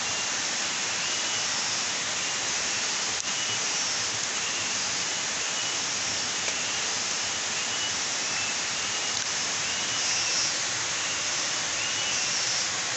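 Tropical forest ambience: a steady high-pitched hiss, with short chirps repeating about once a second.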